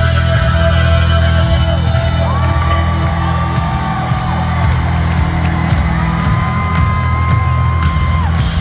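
Live rock band playing loud through a concert PA, carried by a heavy, steady bass line.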